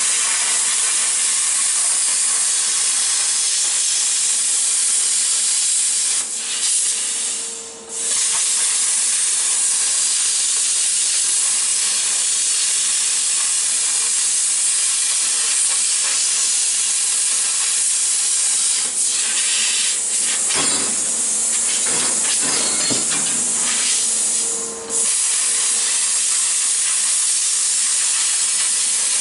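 Handheld plasma cutter hissing steadily as its arc cuts through 14-gauge steel sheet. The hiss dips briefly a few times, around 7 to 8 seconds in and again near 25 seconds, and turns uneven and crackly for a couple of seconds about two thirds of the way through.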